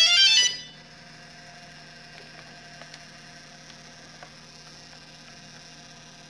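A DJI Phantom FC40 powering up with a brief, loud sequence of stepped electronic start-up tones. After about a second this gives way to a steady hum and buzz with faint ticks from the brushless gimbal's motors jittering: the camera is not perfectly balanced, so the gimbal keeps vibrating.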